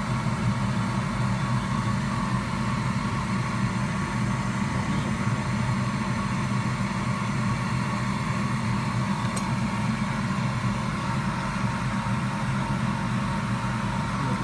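Steady low machine hum running without change, with one faint click about nine and a half seconds in.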